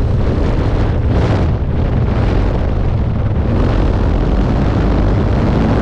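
Senior Telemaster model airplane's engine running at takeoff power, heard from a camera on the airframe as a loud, rough, steady drone mixed with wind buffeting on the microphone.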